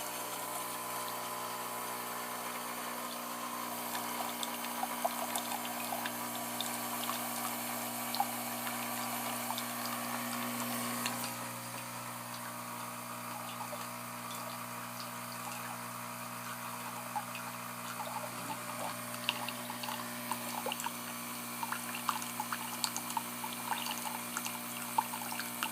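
Nescafé Dolce Gusto Piccolo pod machine pumping hot water through with no capsule in, a first-use rinse: a steady pump hum over water running and dripping into a cup. The hum grows thinner about eleven seconds in.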